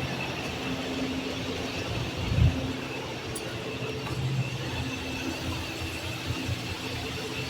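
Steady machinery hum with a faint high whine, and a short low thud about two and a half seconds in.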